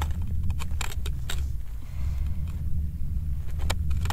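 Steady low wind rumble buffeting the microphone, with a handful of short sharp clicks and crunches from hands working an ice-fishing tip-up in the snow, several in the first second and a couple near the end.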